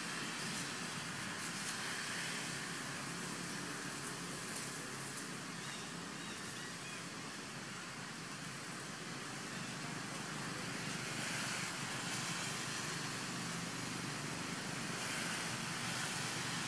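Steady outdoor background noise: an even hiss with no distinct calls or knocks.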